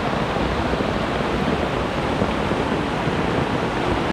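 Floodwater flowing: a steady, unbroken rush of water noise.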